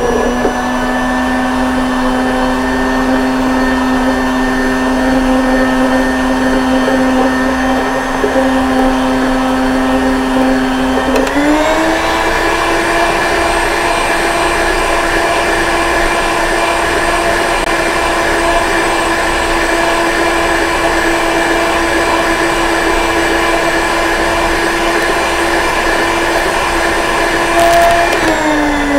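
Electric stand mixer's motor whining steadily as its beaters whip a gelatin-based diet whipped topping that has been thinned with a little extra water. About a third of the way in it is switched to a higher speed and the whine steps up in pitch. At the very end it is switched off and winds down.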